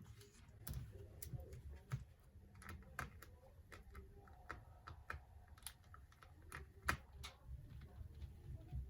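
Faint, irregular light clicks and taps of a laptop battery and small parts being handled and fitted back into an Asus F15 gaming laptop, with one sharper click about seven seconds in.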